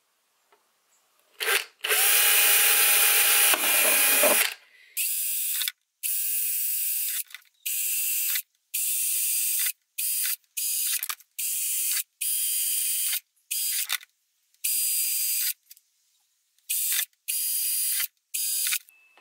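Cordless drill boring holes through the thin wall of a clear plastic storage box. There is one longer run about two seconds in, then about a dozen short trigger bursts, which ease the bit through so the thin plastic doesn't crack.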